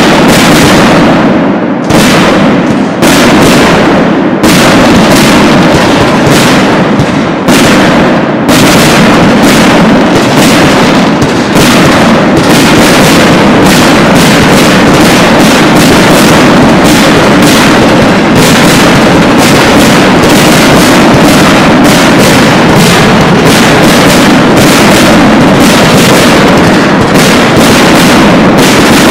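Aerial firework shells bursting in a loud, rapid barrage. The bangs come thicker after about eight seconds, until they run together into an unbroken crackle of reports.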